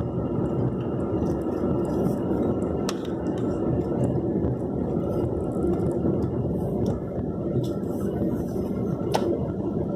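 Steady road and engine noise heard from inside a car driving over a rough road, with a couple of sharp knocks from the cabin about three seconds in and again near the end.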